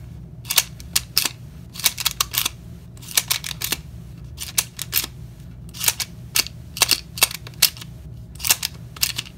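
Steel bits clicking and rattling against the hex socket of an interchangeable-bit screwdriver as they are pulled out and pushed in: irregular sharp clicks, often several in quick succession.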